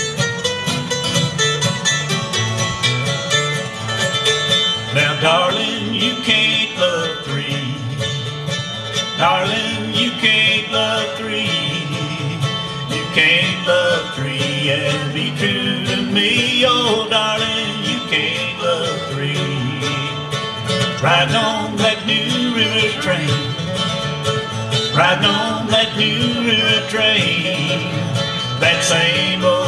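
A mandolin and an acoustic guitar playing a bluegrass tune together, the guitar strumming the rhythm while the mandolin picks.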